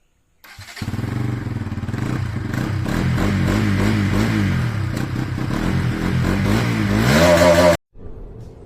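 An engine running with its pitch rising and falling a little as it revs, starting about half a second in and cutting off suddenly near the end.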